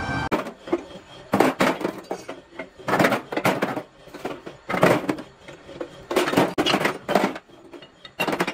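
Metal clanking and knocking: irregular bunches of sharp strikes, roughly every second and a half.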